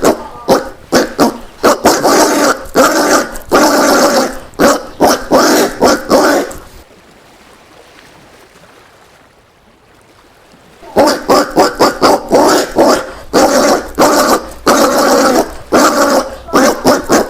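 Collared peccary calling: a rapid series of short calls, several a second, that stops about a third of the way in and starts again after about four seconds.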